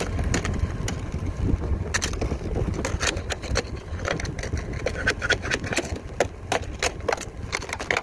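Ice and packed snow cracking and crunching as they are knocked and scraped off a truck's windshield wiper blades by hand: many sharp, irregular cracks and clicks over a steady low rumble.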